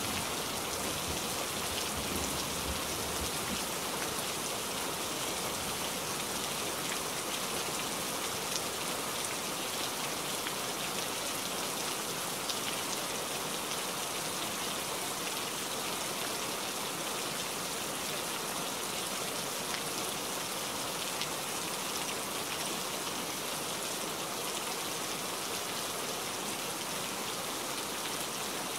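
Steady rain falling on foliage: an even hiss with scattered fine drop ticks. A low thunder rumble dies away in the first few seconds.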